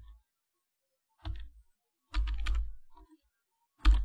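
Typing on a computer keyboard in short runs of keystrokes: a pause at first, a brief burst about a second in, a longer run after two seconds, and a final quick burst near the end.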